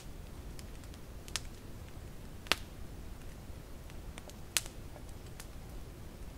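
Wood campfire crackling, with scattered faint ticks and three sharp pops. The loudest pop comes about halfway through.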